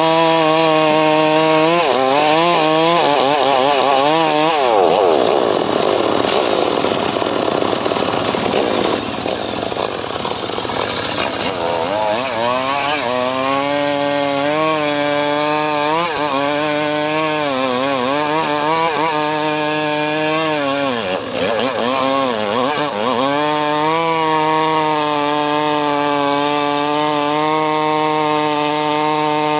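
Homemade engine-driven saw rig (gergaji srekel) cutting mahogany. Its motor note sags and recovers several times as the blade takes the load, with a stretch of rough sawing noise from about four to eleven seconds in, and it runs steadier near the end.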